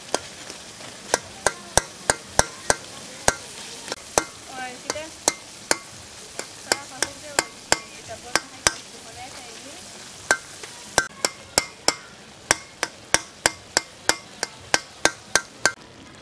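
Long metal spatula knocking and scraping against the sides of an aluminium karahi as a tomato and fish curry is stirred: sharp, irregular clacks a few a second, with a short pause a little past the middle, over a low steady sizzle from the pot.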